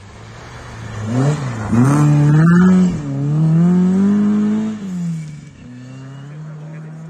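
Classic Ford Escort Mk1 rally car accelerating hard past, its engine revving up, dropping briefly with a gear change about three seconds in and climbing again. The note then falls and fades into a steadier, quieter drone as the car drives off.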